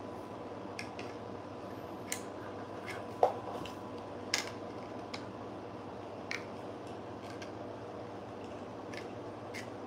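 Pliers gripping and bending the metal mounting tab of a magnetic fluorescent ballast: a handful of short, sharp metallic clicks at uneven intervals, the loudest a little over three seconds in, over a faint steady hum.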